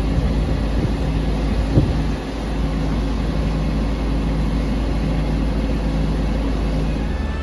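Fire engine's diesel engine running steadily, driving its water pump for the connected hose lines. There is one short knock a little under two seconds in.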